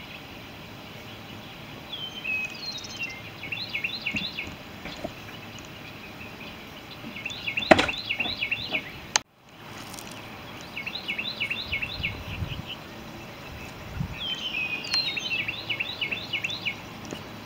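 A songbird singing phrases of quick, repeated high chirps, several phrases in a row, over a steady outdoor background. A single sharp knock comes about halfway through, and the sound cuts out for an instant just after.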